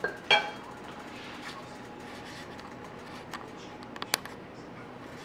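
Kitchen clinks around a stovetop pan: a knock that rings briefly near the start, then a steady low hiss with a few faint ticks and one sharp click about four seconds in.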